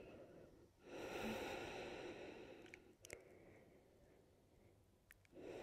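A person's long audible exhale, a sigh-like breath out starting about a second in and lasting about a second and a half, then near silence with a couple of faint clicks.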